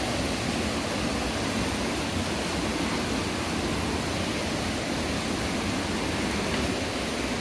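Steady rush of white water from a river tumbling over falls.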